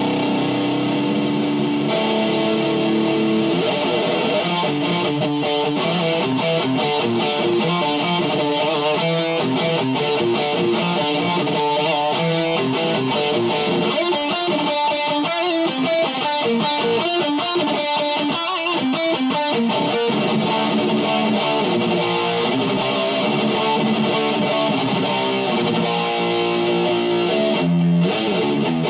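Distorted electric guitar playing extreme-metal riffs, with a stretch of very fast picking about halfway through.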